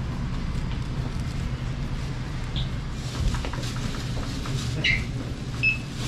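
Steady low hum of market background noise, with scattered faint clicks and a couple of brief high squeaks near the end.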